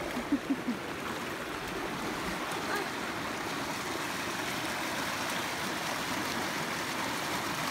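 River water rushing steadily over a rocky rapid, an even hiss. A few short voice sounds about half a second in.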